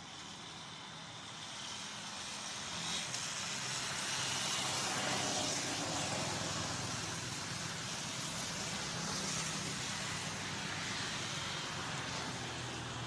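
A motor vehicle passing, engine hum with tyre and road noise, growing louder over the first few seconds and then slowly fading.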